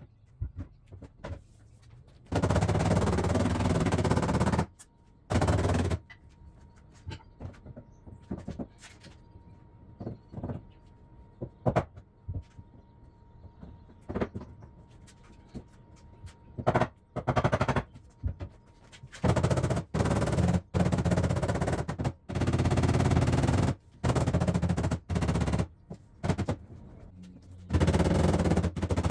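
Bursts of rapid-fire hammering on the steel of a pushed-in car quarter panel as it is knocked back out from inside, each burst lasting up to about two seconds. A quieter stretch in the middle holds only scattered single knocks.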